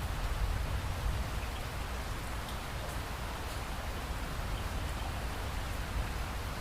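Steady rain falling: an even hiss with a strong low rumble underneath and scattered faint drop ticks.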